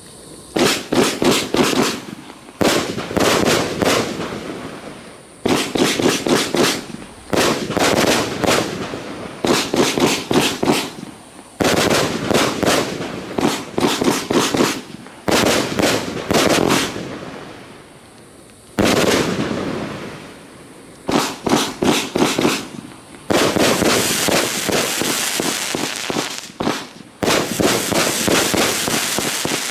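A 30 mm, 100-shot firework cake firing in quick volleys: clusters of sharp bangs every second or two, each trailing off before the next. In the last several seconds the shots come denser and almost without a break.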